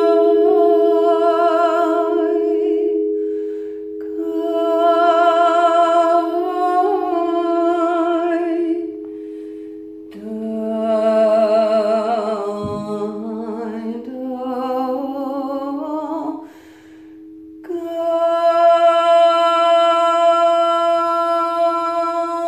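Crystal singing bowls ringing on two steady tones while a woman's voice sings long wordless, wavering tones over them in four long phrases with short breaks. In the third phrase her voice starts low and slides steadily upward.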